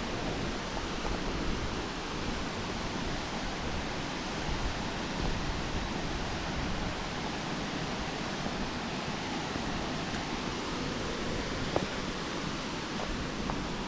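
Steady rushing of a waterfall, with a fluctuating low rumble of wind on the microphone.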